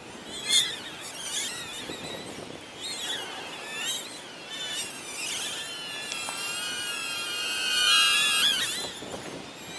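Hubsan X4 H107D mini quadcopter's coreless motors and propellers whining in flight, several high tones wavering up and down in pitch as the throttle changes, loudest a little before the end.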